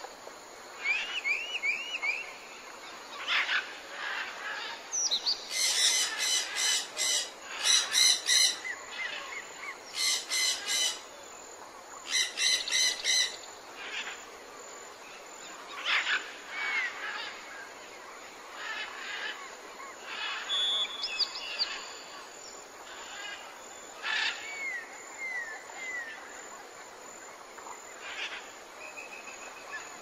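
A mix of birds chirping and calling over a steady background hiss. The loudest part is four bursts of fast, harsh chattering notes between about six and thirteen seconds in, with shorter whistled chirps and small runs of falling chirps scattered through the rest.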